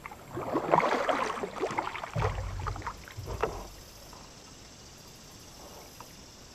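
Double-bladed kayak paddle strokes: the blade dips and pulls through still water with splashing and dripping for the first few seconds. Low rumbles come in around two and three seconds in. After that only quiet water with a few faint drips.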